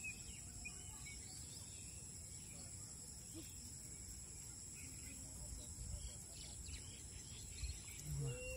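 Outdoor ambience: a steady high insect drone over a low rumbling background noise, with a few short bird chirps at the start and near the end.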